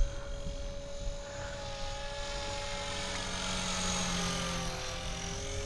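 Blade Fusion 360 Smart electric RC helicopter flying, its motor and rotors making a steady whine with a rushing hiss. It grows louder toward the middle as it comes nearer and eases near the end, with slight shifts in pitch as it flies what is likely a loop.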